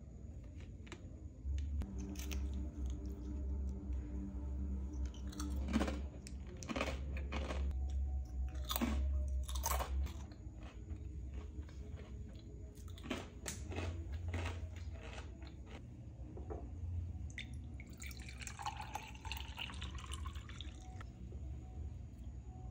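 A person chewing a crisp Japanese snack close to the microphone, with a run of sharp crunches in the first half and a few more about two-thirds of the way through.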